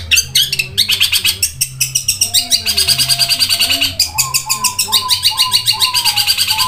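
Long-tailed shrike (cendet) singing a loud, fast chattering song of rapidly repeated chirps, with mimicked calls such as tree sparrow notes. About four seconds in, a run of lower whistled notes joins the chatter.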